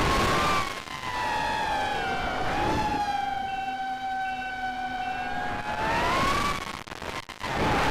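Brushless motors and three-blade propellers of a 4-inch FPV racing quad (Cobra 2206 2100kv motors), heard through the onboard camera: a high whine over rushing air. About a second in it drops to a cleaner, lower steady whine. It rises again near six seconds, almost drops out for a moment, then comes back with the rush of air.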